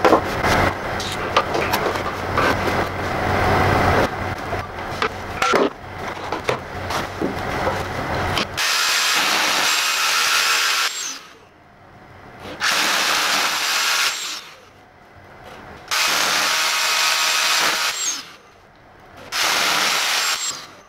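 Irregular knocking and scraping, then a Makita 18V cordless rotary hammer drilling into the wall in four steady bursts of about two seconds each, with short pauses between them.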